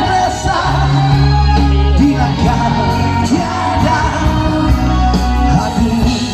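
Live rock band playing loudly, with bass, drums and guitars under a sung or shouted vocal line.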